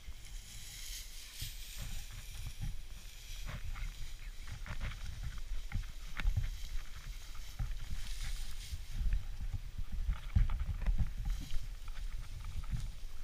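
Footsteps through tall dry grass: a dull thud about once or twice a second, with the stiff stems swishing and crackling against legs and clothing.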